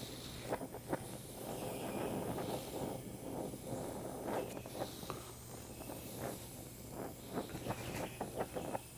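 Gas brazing torch flame hissing steadily while a flux-coated bronze brazing rod is melted onto red-hot cast iron, with many small irregular crackles and ticks.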